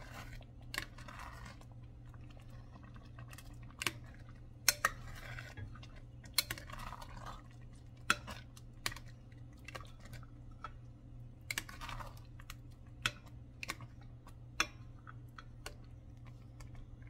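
Plastic rice paddle stirring rice in a glass pot: scattered sharp clicks as it knocks against the glass, with a few short scraping swishes through the rice.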